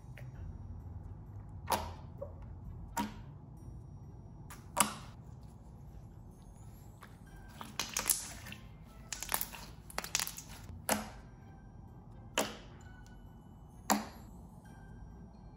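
Thick, stretchy gold glitter slime being squished, kneaded and poked by hand, giving sharp, wet clicks and pops every second or two, with a quick cluster of them near the middle.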